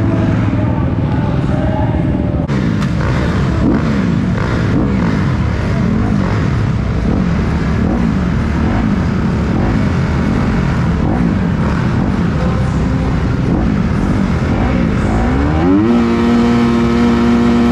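Several dirt bike engines idling and being blipped at a starting gate, their pitches wavering up and down. About fifteen seconds in, one engine revs up and is held at high revs, as riders do waiting for the gate to drop.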